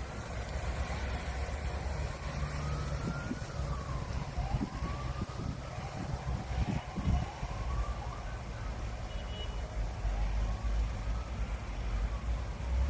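A siren wailing, its pitch rising and falling every second or two, over a steady low rumble, with a few soft thumps in the middle.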